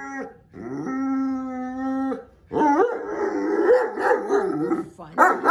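Great Dane howling: a long steady howl, then a wavering one that rises and falls in pitch, breaking into short barks near the end.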